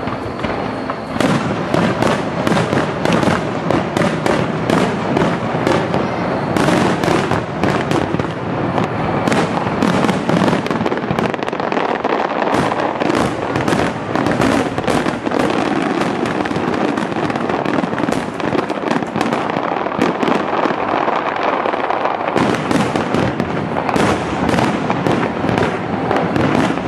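Aerial fireworks shells bursting in a dense, rapid barrage, the bangs overlapping with hardly a break.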